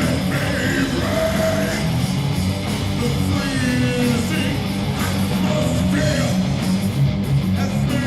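Live heavy rock band playing: loud distorted electric guitar over bass and drums.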